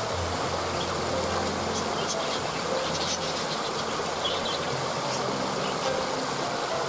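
Waterfall rushing steadily, with a low steady rumble underneath and a few brief, faint bird chirps in the middle.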